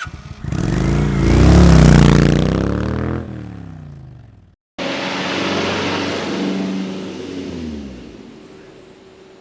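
A vehicle engine revving and changing pitch, rising and then falling, then fading. It cuts off abruptly and a second, quieter engine passage follows and fades away.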